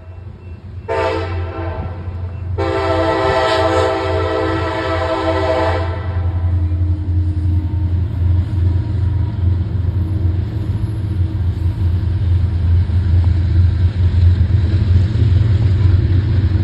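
Train horn sounding a short blast, then a long blast that ends about six seconds in, followed by the steady low rumble of the train running by.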